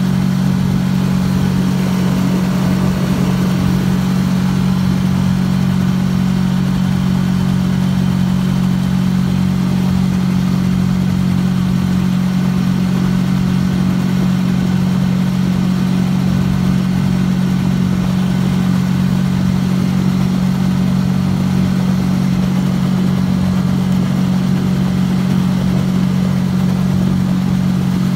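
A canoe's small outboard motor running at a steady, unchanging throttle, a constant low engine hum as the canoe travels across the lake.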